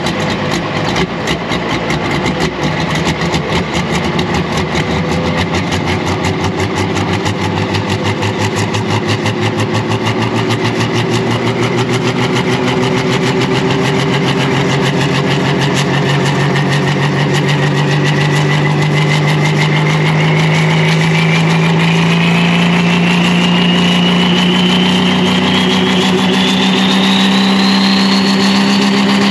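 Pro stock pulling tractor's turbocharged diesel engine running with an uneven, pulsing beat at first, then its revs climbing slowly and steadily through the second half, a high whine rising along with them.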